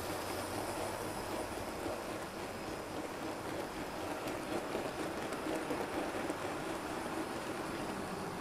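NZ120-scale model freight train rolling past: a steady rattling rumble of its wagons' small wheels running over the track.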